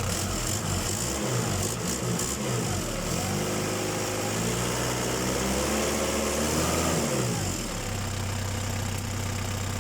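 Toyota forklift's 1DZ-II four-cylinder diesel engine running after a starting fault was traced to a bad glow plug. It revs up and back down, and settles back to a steady idle about three-quarters of the way through.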